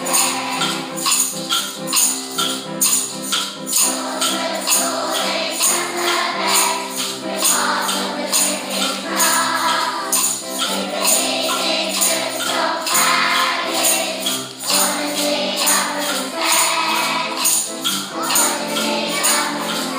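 Upbeat music with a tambourine shaken on a regular beat and voices singing.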